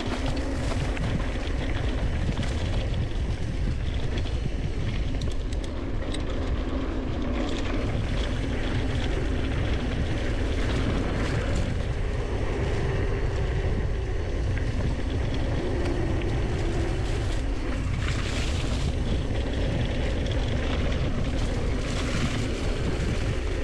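Wind rushing over a chest-mounted GoPro's microphone on a fast mountain-bike descent, with steady tyre rumble on dirt singletrack and the bike's frequent small clicks and rattles over bumps.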